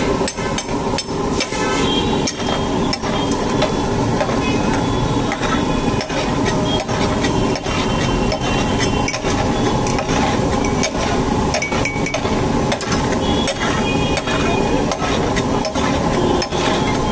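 Flat steel spatula scraping and knocking against a large iron tawa as pav bhaji is mashed and spread, with many quick sharp clanks throughout.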